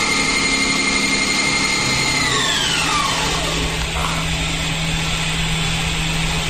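Hardinge Cobra 42 CNC lathe running. Its spindle drive whines at a steady high pitch, then about two seconds in the whine falls away in pitch as the spindle slows down. A steady low machine hum carries on underneath.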